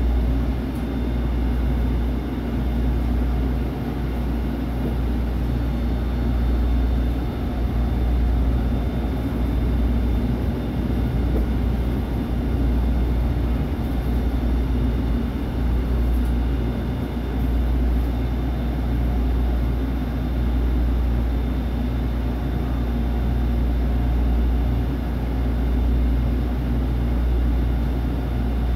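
Interior sound of a SEPTA Route 101 trolley car in motion: a steady low rumble from its running gear and wheels on the rails, with faint steady high tones above it.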